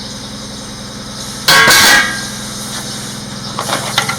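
Steady hum of an idling engine. About a second and a half in comes one loud, harsh noise lasting about half a second, and a few light knocks follow near the end.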